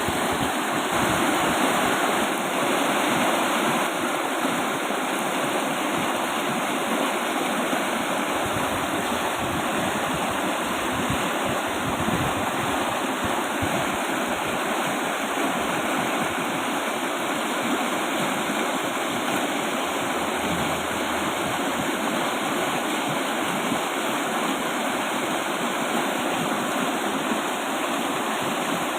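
Fast-flowing river rushing steadily, a dense, unbroken roar of moving water.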